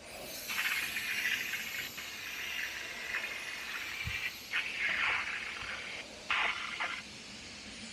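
Compressed-air powder coating gun spraying gloss black powder, a hiss that swells in three bursts as the trigger is pulled.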